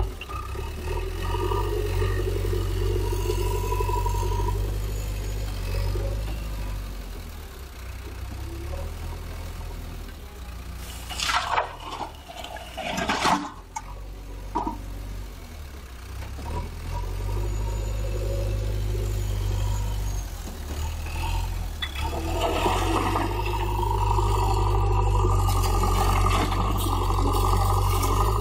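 JCB 3DX backhoe loader's diesel engine running under load, louder and higher as the front bucket pushes into a rock and soil pile near the start and again in the last several seconds. About halfway through, a burst of clattering as the bucket tips rocks and soil into a tractor trailer.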